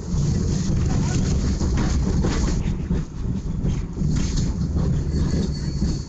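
Tram running, heard from inside the car: a heavy rumble of the wheels and motors with loose rattling. A faint high-pitched wheel squeal creeps in near the end.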